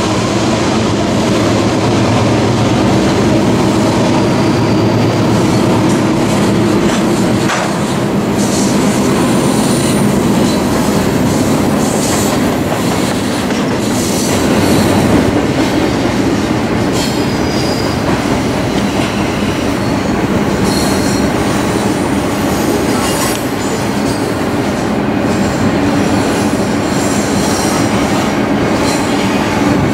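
Double-stack container train cars rolling past on a curve: a steady rumble of steel wheels on rail, with short high-pitched wheel squeals coming and going through the middle and later part.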